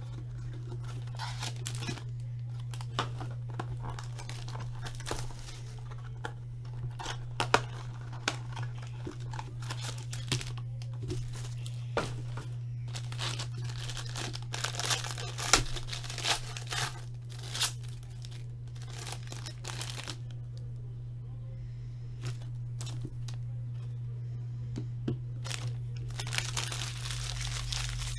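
A trading-card box and its foil-wrapped pack being torn open and handled: irregular crinkling and tearing, quieter for a few seconds past the middle, over a steady low hum.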